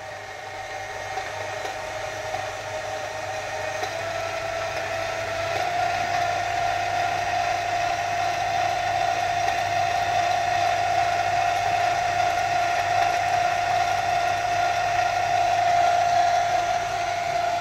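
Screw oil expeller, driven by a 3 hp electric motor through an inverter, running steadily while pressing mustard seed, with oil coming out. It gives off a steady whine that rises slightly in pitch about five seconds in and grows gradually louder.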